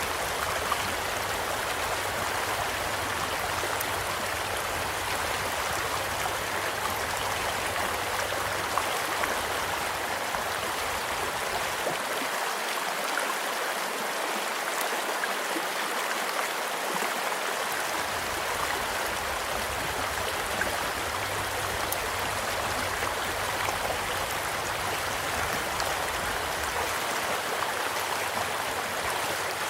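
Stream flowing steadily, with a campfire crackling now and then over it: small scattered pops and a few sharper ones.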